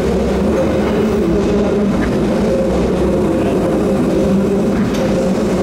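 Electric train running at a station, a steady hum with a low rumble underneath.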